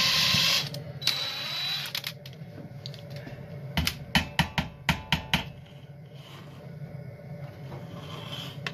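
DeWalt cordless drill, driving a mixing paddle in a kettle of thickening scrapple, cuts out about half a second in; the user takes this for the battery dying. A few seconds later comes a quick run of about eight sharp clicks.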